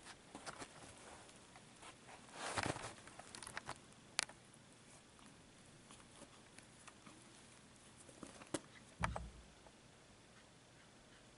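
A kitten playing with a feather wand toy on carpet: scattered soft rustles and scuffs, a few sharp clicks, and a dull thump about nine seconds in.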